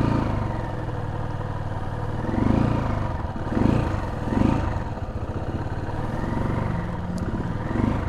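Janus Phoenix 250's single-cylinder engine idling on half choke while it warms up from a cold start. Its note swells briefly a few times.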